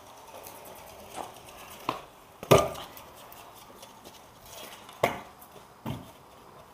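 Stunt scooter on concrete: wheels rolling with a handful of sharp clacks of the deck and wheels striking the ground, the loudest about two and a half seconds in and another about five seconds in.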